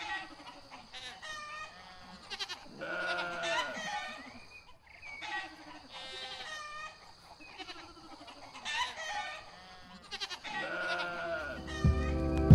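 Livestock bleating: a string of short, wavering calls, one after another. A music track with a heavy beat comes in near the end.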